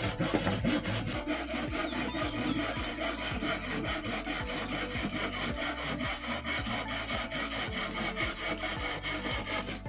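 Hand saw cutting through a wooden plank in steady, even back-and-forth strokes.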